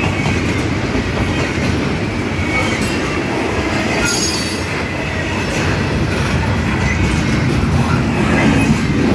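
Intermodal freight train's container cars rolling past close by: a steady loud rumble and clatter of steel wheels on rail. A brief high wheel squeal comes about four seconds in.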